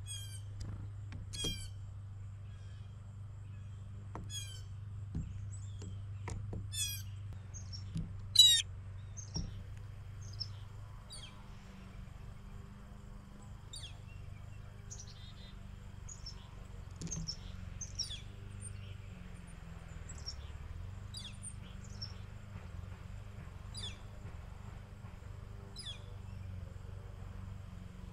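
Blue jays calling, with several loud calls in the first ten seconds, the loudest about eight seconds in, followed by short, high, falling chirps from smaller birds over a steady low hum.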